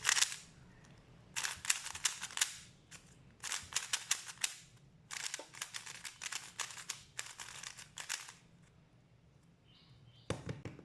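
MoYu RS3M 2020 speedcube being turned fast in several bursts of rapid clicking layer turns, about a second each with short pauses between. A single heavier thump near the end.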